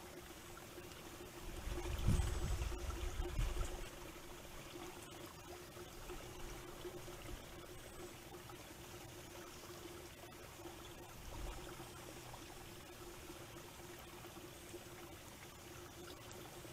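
Wind gusting against a trail camera's microphone, with low rumbling buffets loudest from about two to four seconds in and again briefly near eleven seconds, over a steady hiss of wind and water by a pond. A faint steady hum sits underneath.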